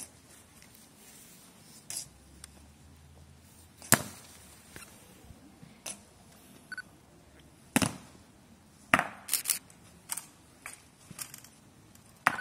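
Honour guards' boot heels striking pavement in a slow ceremonial march, one sharp click about every two seconds. A quicker, irregular run of clicks and taps follows as they come to a halt.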